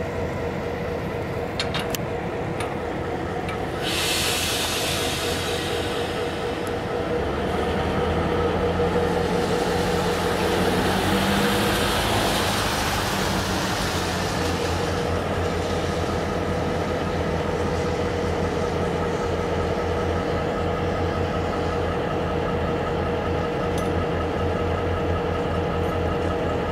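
Diesel locomotive engine running with a steady, even hum and low throb. About four seconds in a hiss lasts a few seconds, and around the middle a broader rushing sound swells and fades over the engine.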